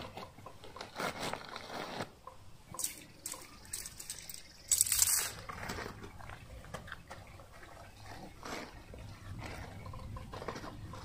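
Camping gear being handled: a backpack and a nylon tent bag rustling as the tent is pulled out and unrolled, with scattered clicks and one loud, brief swish about five seconds in.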